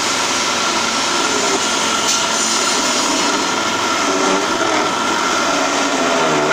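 Small benchtop mini wood lathe running with a steady motor whine while a turning chisel cuts the spinning wooden blank, a continuous shaving of wood.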